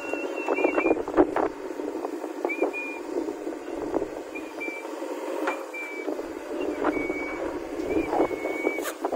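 JCB backhoe loader at work, its rear bucket digging loose earth and dumping it into a tipper truck, with a dense clatter of soil and stones knocking. Short high whistling tones come and go several times over the machine noise.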